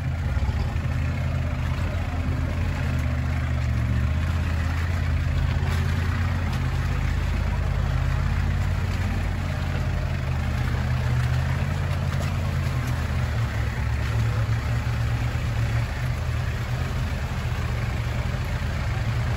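Land Rover 4x4's engine running steadily at low revs, a continuous low hum with rumbling road and body noise.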